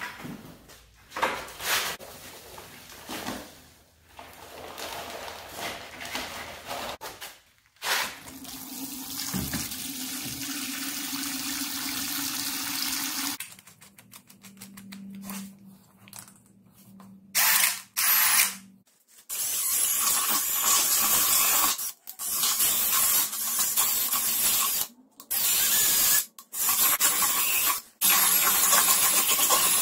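Red cordless drill with a paddle mixer stirring mortar in a plastic bucket: a loud, rough churning that runs in bursts with a few short stops in the last third. Before that, the dull rustle of mortar powder poured from its bag into the bucket.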